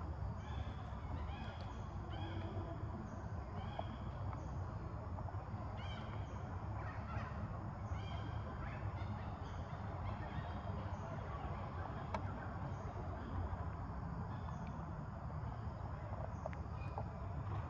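Outdoor forest ambience: a steady low rumble with short, high bird calls repeating every second or so.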